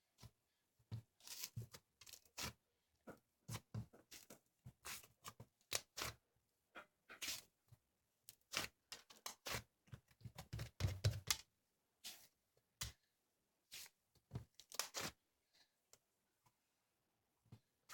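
Slime being squeezed and stretched by hand, making faint, irregular short crackling pops and clicks, with a quick run of them about ten to eleven seconds in.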